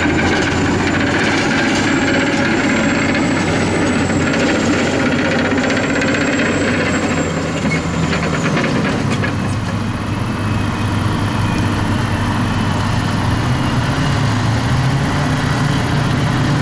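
Caterpillar D10T bulldozer's V12 diesel engine running steadily under work, with a thin high whine that stops about eight seconds in; the engine note shifts to a different pitch around then.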